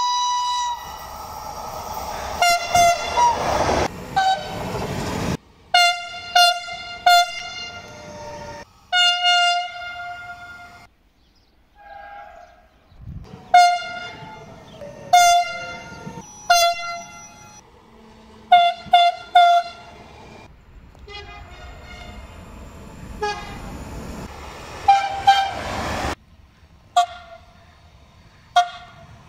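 Italian passenger trains sounding their horns as they come into stations: a string of short toots and longer blasts, some stepping between two notes. Between the horn calls the wheels of the passing trains rumble on the rails.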